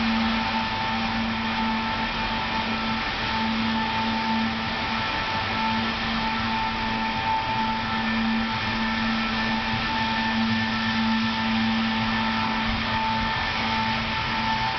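Steady mechanical hum and hiss in an underground metro station, with a low hum and a higher tone that waver slightly but do not build up.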